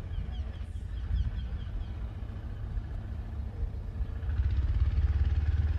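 Outdoor ambience dominated by a dense low rumble that swells over the last couple of seconds. Over the first two seconds a small bird gives faint, quickly repeated high chirps.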